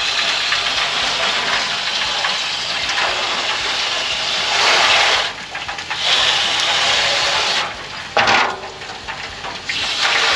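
Water pouring and splashing into an aluminium foil drip pan, a steady rushing hiss that breaks off twice in the second half before running again.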